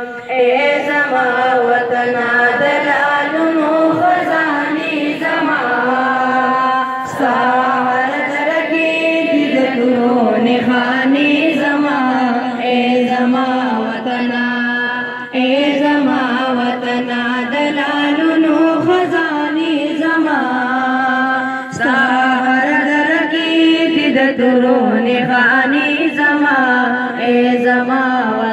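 A Pashto patriotic song sung in long, drawn-out melodic phrases of a few seconds each, the notes held and sliding up and down.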